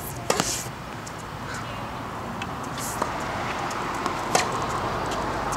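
Tennis ball struck by rackets and bouncing on a hard court during a rally: a few sharp pops, the loudest just after the start and again a little past four seconds in.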